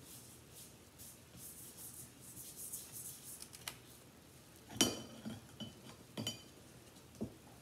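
Watercolour brushes stroking softly on paper, then two sharp clinks with a brief ring about a second and a half apart, and a light knock near the end, from a paintbrush tapping the water cup.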